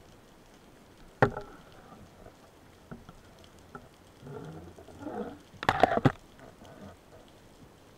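Underwater knocks and scuffling as a speared grouper is handled on a wooden speargun: one sharp knock about a second in, a patch of scraping and rubbing, then a quick cluster of knocks about six seconds in.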